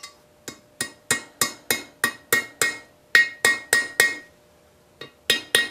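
Hammer tapping a steel easy out (screw extractor) into a drilled-out, seized broken bolt in a cast-iron engine cylinder, to seat it before trying to back the bolt out. A quick run of a dozen or so sharp, ringing metal taps, about three a second, then a short pause and a few more taps near the end.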